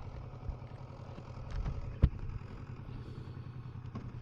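Kawasaki Versys 650 parallel-twin engine running steadily at low revs, with one sharp click about two seconds in.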